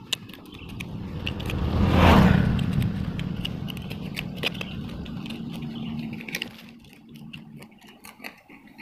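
A vehicle passes on the nearby road, swelling to a peak about two seconds in and then fading away. Under it and after it come small scrapes and clicks of a knife blade digging into stony soil around a shrub's roots.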